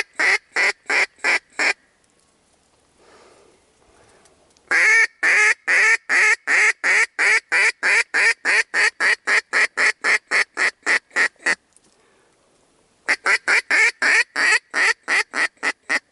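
Duck quacking in long, rapid, evenly spaced runs of about four loud quacks a second: a short run at the start, a long run of several seconds from about five seconds in, and another starting near the end.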